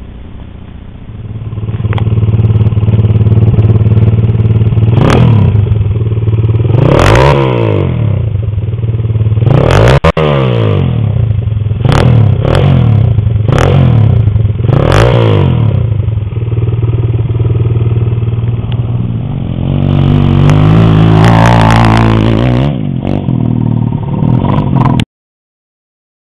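Honda XR50 mini bike with a 110 cc stroker kit, its single-cylinder engine idling and being revved repeatedly in short blips, with a longer rev near the end; the sound cuts off suddenly just before the end.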